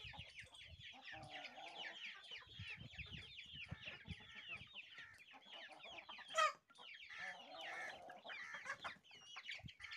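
A flock of chickens: many chicks peeping continuously in rapid, high chirps, with hens clucking lower underneath. One loud, sharp call stands out about six seconds in.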